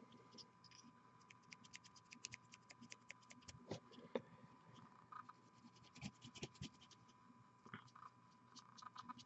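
Faint, quick scratchy ticks of a fine paintbrush working paint onto a miniature figure, coming in irregular clusters, over a faint steady high tone.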